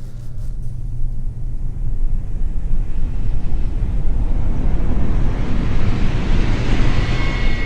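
Sci-fi spaceship bow-whoosh effect, a stock whoosh sound slowed down and reversed, played dry without plugins: a rumbling rush of noise that swells steadily and grows brighter toward the end, with no Doppler pitch change. A faint steady whine shows through near the end.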